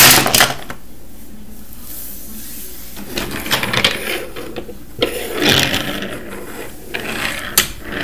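Toy trains being pushed and handled on a tabletop: wheels rolling along the surface, with scattered clicks and knocks of plastic and wood from about three seconds in.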